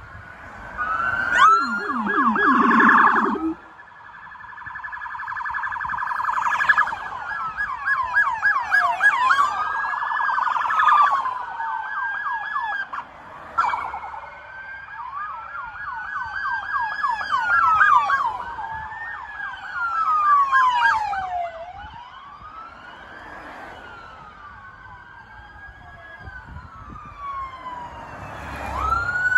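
Police cruiser sirens in a passing convoy, several overlapping, switching between slow rising-and-falling wails and fast yelps. A loud horn-like blast comes about one to three seconds in.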